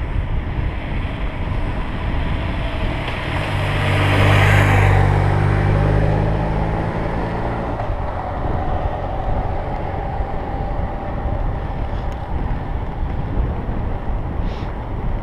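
Steady wind and road rush on a cycling camera's microphone during a road-bike ride. A motor vehicle drives past, its engine hum and tyre hiss swelling to a peak about four to five seconds in and fading by about eight seconds.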